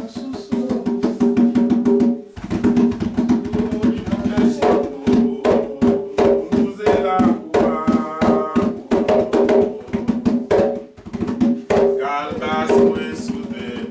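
Vodou ceremonial drumming in a fast, steady beat, with voices singing over it. The drumming breaks off briefly about two seconds in, then resumes.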